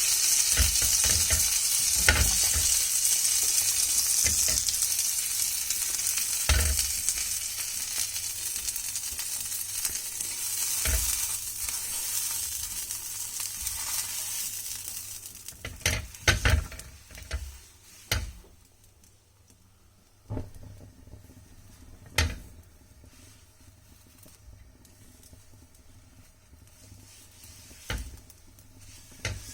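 Butter sizzling on a hot tawa as buttered pav bread rolls toast with bhaji. The sizzle fades away about halfway through, and a few separate knocks of utensils against the pan follow.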